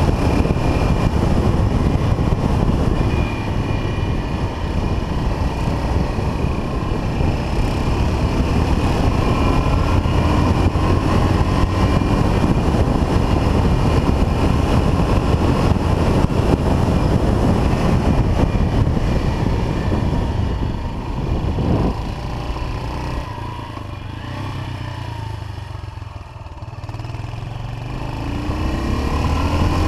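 1979 Yamaha XT 500's air-cooled single-cylinder four-stroke engine running under way on the open road. About two-thirds through, the throttle eases off and the engine goes quieter. Near the end it picks up again, rising in pitch.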